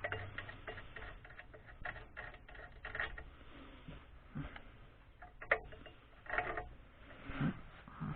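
Irregular light clicks and taps of small hard objects being handled, with one sharper, louder knock about five and a half seconds in.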